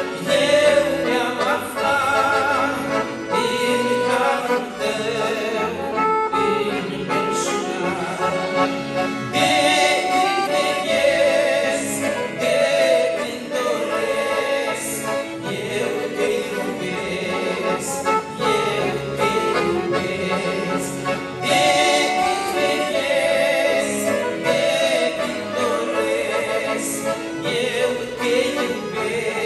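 Two men singing a Romanian-language hymn together, accompanied by two piano accordions.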